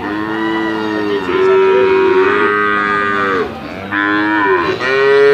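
Bali cattle mooing: several long, drawn-out calls overlapping and following one another, with a brief break about three and a half seconds in before another call starts.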